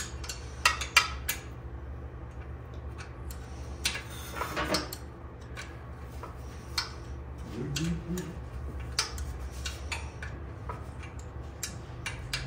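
A metal wrench clicking and clinking irregularly against the rear axle adjuster of a motorcycle swingarm as the adjuster is backed out, over a steady low hum, with a short scrape about four and a half seconds in.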